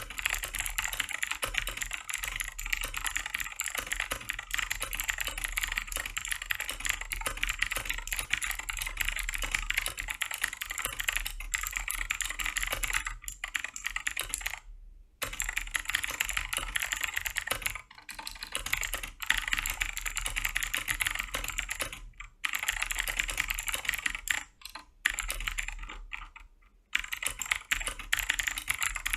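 Fast, continuous typing on a Keychron K4 mechanical keyboard, a dense stream of key strokes with a few brief pauses around the middle and near the end.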